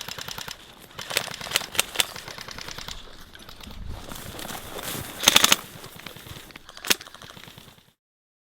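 Airsoft guns firing rapid full-auto bursts of covering fire, a fast clatter of shots with the loudest burst about five seconds in. The sound cuts off to silence about a second before the end.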